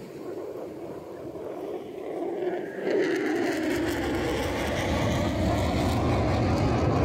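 F-35A fighter jet's single turbofan engine passing, growing loud about three seconds in, with its pitch sliding downward as it goes by.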